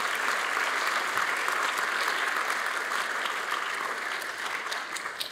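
Audience applauding with steady clapping, dying away near the end.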